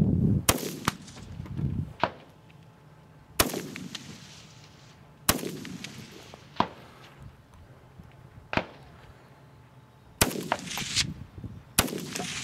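Rifle shots fired one at a time at long-range targets, spaced irregularly one to five seconds apart, with shots coming closer together near the end. Each shot is a sharp crack that trails off in a rolling echo, with fainter cracks in between.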